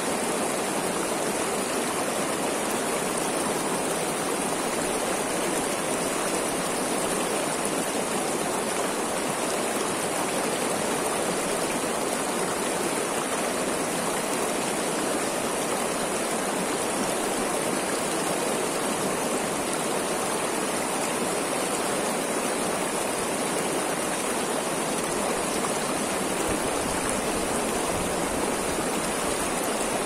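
Mountain stream rushing over shallow rock ledges in small white-water cascades: a steady, even rush of water.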